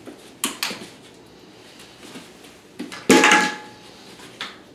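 Plastic agility jump bar clattering as it comes down off its cup and is handled, with a short ringing tone. A couple of lighter knocks come about half a second in, and the main clatter a little past three seconds is the loudest sound.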